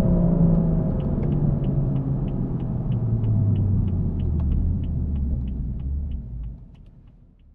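Cabin sound of a 2016 BMW M235i's 3.0-litre inline-six with M Performance Exhaust, its note falling steadily as the car slows, with the turn-signal indicator ticking about three times a second from about a second in. The sound fades out near the end.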